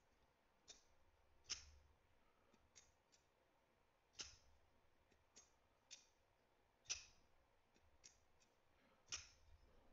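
Faint clicks of a Sencut Arcblast button-lock folding knife as its blade is swung open and shut, with the clearest few clicks coming every two to three seconds.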